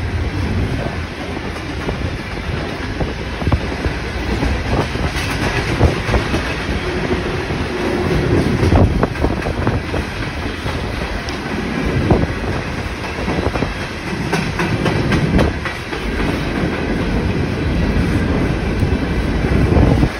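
Freight train of open hopper cars rolling past: a steady rumble of steel wheels on the rails with repeated clicking as the wheels cross rail joints, and a brief squeal about seven seconds in.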